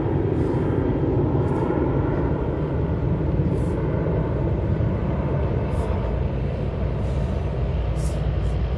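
A steady low outdoor rumble, with several short high hisses scattered through it.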